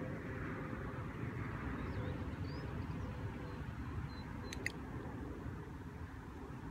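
A handheld dog-training box clicker giving one sharp double click, press and release, about four and a half seconds in: the marker telling the dog it is in the right position beside the handler. Under it runs a steady outdoor background rumble.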